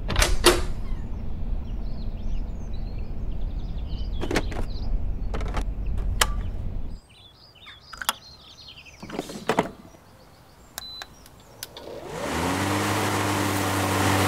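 A low rumble with a few sharp hits, then a quieter stretch of scattered clicks. About twelve seconds in, the brushless 48 V electric motor of a STIGA Combi 753 battery lawn mower spins up: its pitch rises briefly, then holds as a steady hum over the rush of the spinning blade.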